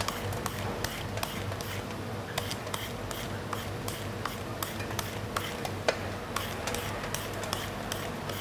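Blade strokes shredding a peeled green papaya by hand: an irregular run of crisp short clicks, a few a second, with one louder stroke about six seconds in. A steady low hum runs underneath.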